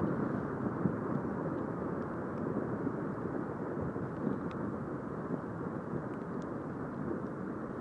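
Steady distant roar of an explosive volcanic eruption as its ash column billows upward, easing slowly.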